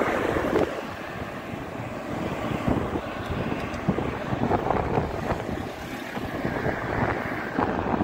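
Wind buffeting the microphone of a moving two-wheeler, over the rush of road and engine noise; a little louder in the first half second while an SUV is close alongside.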